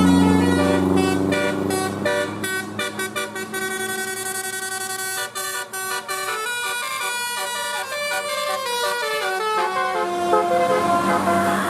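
Bus telolet basuri horn playing a quick tune: a run of steady horn notes stepping up and down in pitch, some repeated rapidly. A low hum underneath fades after the first second or two and comes back near the end.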